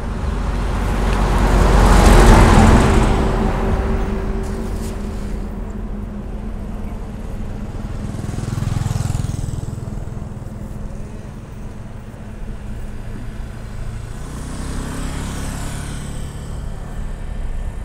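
Motor vehicles passing on a nearby road: one passes close about two seconds in, growing loud and then fading, and two fainter ones pass later, the last with a falling pitch as it goes by.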